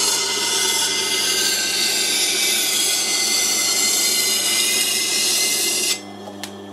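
Steel cleaver edge being ground on a 400-grit CBN wheel of a sharpening machine: a steady, loud scraping hiss over the motor's low hum. About six seconds in the blade comes off the wheel, leaving the motor hum and a light click.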